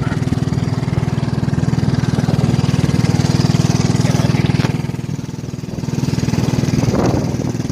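A small engine running steadily with a fast, even firing beat, easing off briefly about five seconds in before picking up again.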